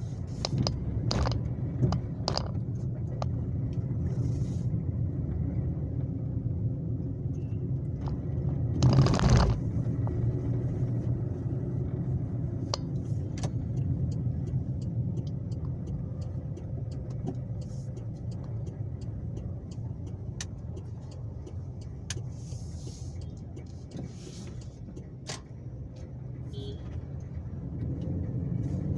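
Steady low rumble of a car's engine and tyres heard from inside the cabin while driving, with scattered light clicks and one brief, louder burst of noise about nine seconds in.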